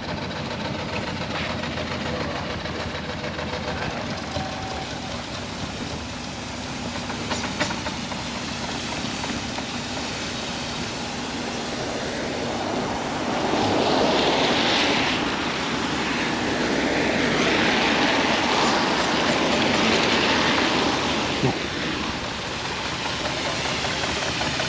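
Miniature steam traction engines running along a wet road among traffic, with a few faint ticks. About halfway through an even rushing noise swells for several seconds, then eases.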